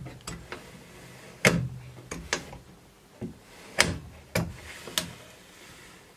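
Evolution R255SMS sliding mitre saw's turntable being swung across its angle scale, clicking into its positive detent stops with a series of sharp clunks, about six spread over a few seconds.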